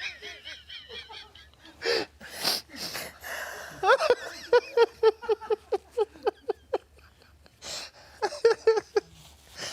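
Helpless, wheezing laughter: breathy gasps, then a quick run of pulsing laughs about three to four a second, and another short burst near the end.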